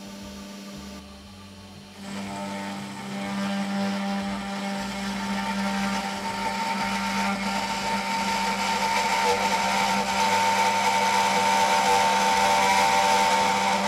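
CNC router spindle running with a 1/8 in O-flute end mill milling a slot in 6061 aluminium plate, a steady whine with a grinding cutting note. It gets louder about two seconds in and keeps building, then cuts off suddenly at the end.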